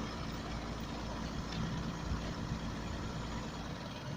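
An engine running steadily, a low rumble.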